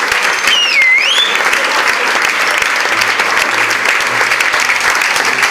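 Audience clapping steadily, with one brief sliding whistle cutting through about a second in.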